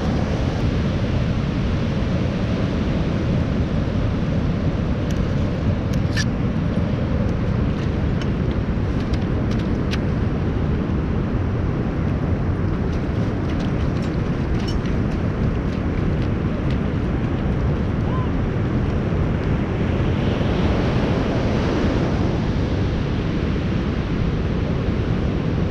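Wind buffeting the microphone over a steady wash of ocean surf, with a few faint clicks.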